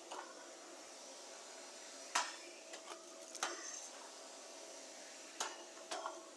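Several short, sharp clicks and clatters at irregular intervals over a faint steady hiss and hum.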